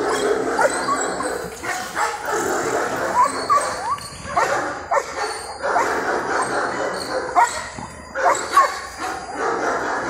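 German Shepherd barking repeatedly, about one to two barks a second, at a decoy in protection training: the dog has been switched on to guard and threaten.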